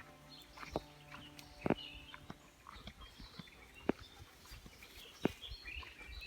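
Small birds chirping outdoors, with four sharp, separate knocks spread through it, the loudest about two seconds in.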